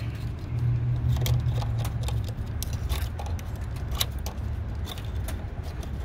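Metal multitool blade scraping an old gasket off the idle air control valve's mounting flange: a scatter of small scratches and clicks, irregular, over a steady low hum.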